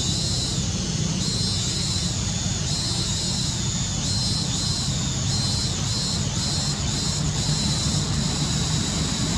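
Outdoor ambience: a steady low rumble under a high, pulsing drone that swells and dips every second or so.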